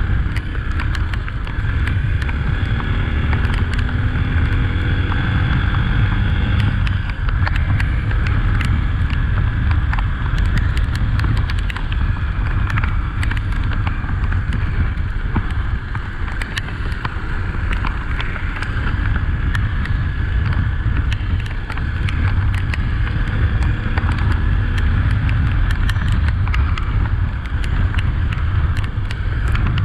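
Honda XRE 300 motorcycle on the move, its single-cylinder engine rising and falling in pitch a few seconds in and again later, under a heavy low wind rumble on the microphone, with scattered sharp clicks throughout.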